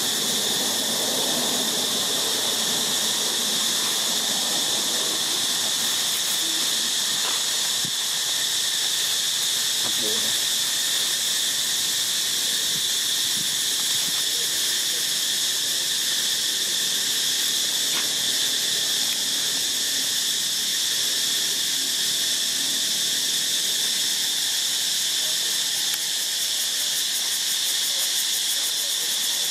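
Steady, high-pitched insect chorus, continuous and unchanging in level.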